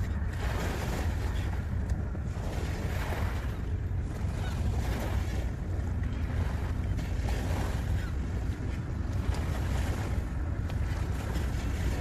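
Small sea waves washing onto the shore, swelling and fading every second or two, over a steady low rumble of wind on the microphone.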